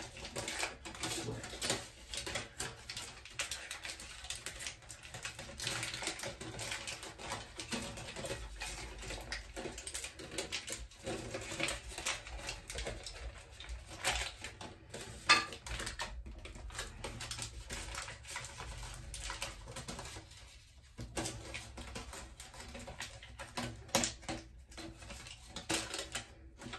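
Aluminum foil being crinkled and pressed by hand into a bowl-shaped boat: a continuous crackling of many small clicks, with a brief lull about twenty seconds in.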